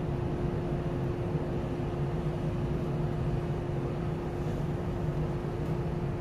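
Steady hum of a standing Shinano Railway 115-series electric train's onboard equipment, with one constant tone over a low hum.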